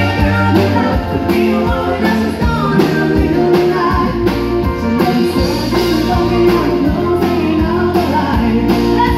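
Live country band music: a woman singing into a microphone over a band with guitars, including a pedal steel guitar, and drums.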